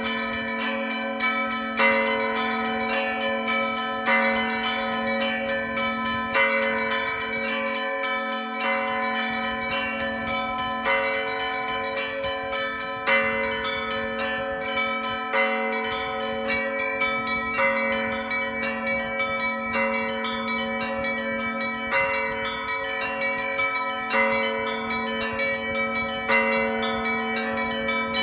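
Orthodox church bells ringing a festal peal: a heavy bell struck about every two seconds, its low hum carrying through, over a quick, steady run of smaller bells.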